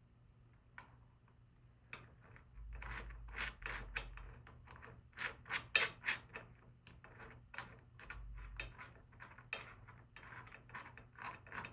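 Irregular small metal clicks and taps of a bolt and washer being fumbled and started by hand into a motorcycle rear rack mount, with a few dull low bumps.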